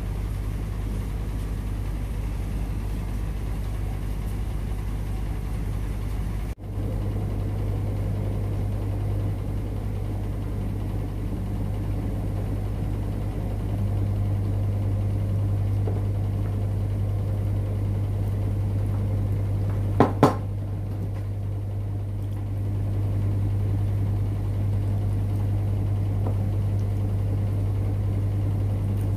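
Steady low hum, with a brief dropout about six and a half seconds in and two quick clicks about twenty seconds in.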